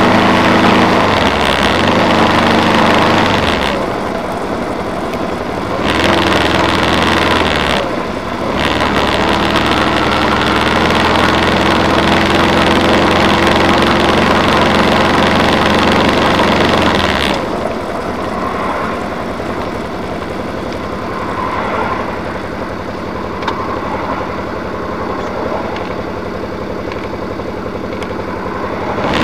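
A car's engine and road noise, heard from inside the cabin while driving slowly; the low engine hum drops away and the sound grows quieter about two-thirds of the way through as the car slows in traffic.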